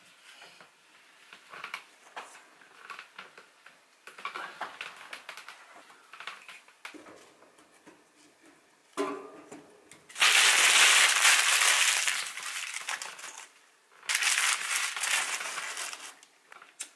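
A wood-burning stove being cleared and laid for a fire: light scrapes and knocks of a tool and wood against the firebox, then two long, loud crunching, rustling bouts from about ten seconds in.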